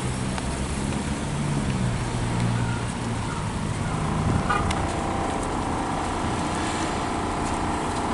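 A motor vehicle engine running with a low, wavering hum. About four and a half seconds in, a higher, steadier whine joins it.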